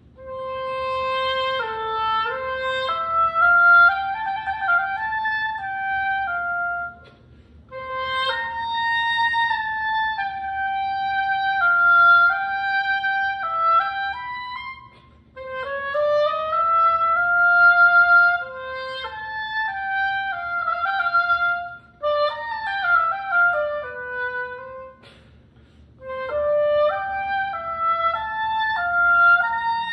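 Unaccompanied oboe playing an etude melody: held notes and a few quick runs, in phrases broken by short pauses.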